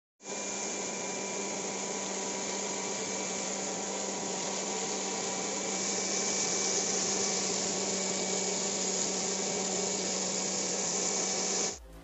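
Homemade bottle vacuum cleaner's 775 DC motor and fan running steadily: a motor whine over a rush of air, a little louder from about halfway, cutting off suddenly near the end.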